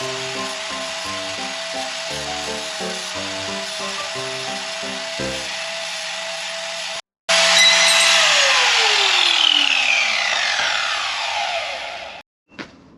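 Angle grinder running on steel, a steady whine over a high hiss, with music under it. After a short break it runs louder, then is switched off about eight seconds in, its whine falling as the disc spins down over about four seconds.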